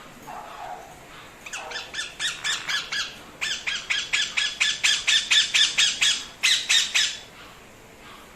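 Indian ringneck parakeet squawking: a fast series of harsh, screechy calls, about four to five a second, in three runs with two brief pauses.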